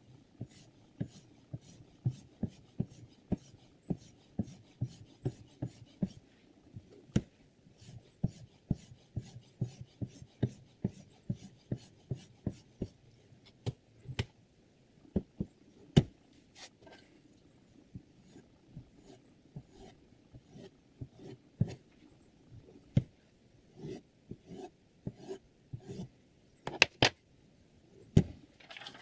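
Sharpening stone on the Hapstone R2's guided arm stroking along a chef knife's edge, short scrapes about two a second. After about 13 s the strokes stop and give way to scattered clicks and knocks of the clamp and blade being handled, the loudest near the end as the knife is taken out of the clamp.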